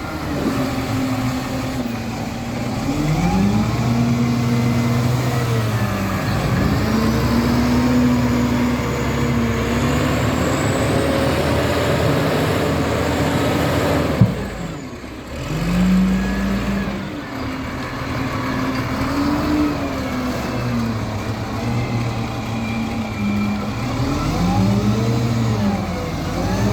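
A heavy loader's diesel engine revving up and dropping back again and again as it works. There is a sharp knock about fourteen seconds in, and the engine sound dips for a moment just after it.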